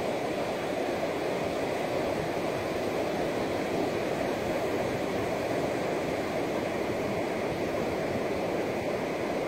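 Ocean surf: small waves breaking and washing up over wet sand, a steady rushing with no distinct crashes.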